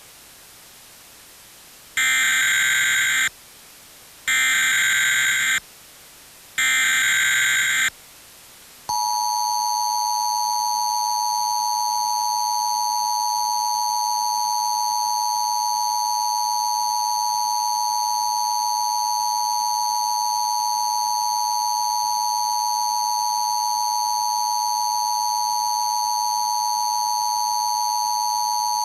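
Emergency Alert System test tones: three short bursts of SAME digital header data, each about a second long with brief gaps between, then after a second's pause the EAS attention signal, a steady two-tone alarm (853 and 960 Hz) sounding unbroken for about twenty seconds.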